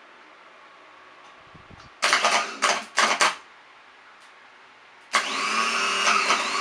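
Car starter motor on the bench, fed straight from a battery by a jumper cable: it runs in three or four short bursts, then from about five seconds in spins continuously with a steady high whine, showing the starter works.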